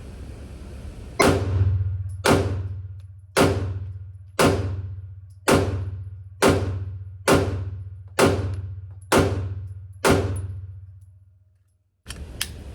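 Ten 9mm pistol shots from a Glock 43X, fired at a steady pace of about one a second: a full magazine emptied. Each shot rings and echoes off the walls of an indoor range, with a steady low hum underneath.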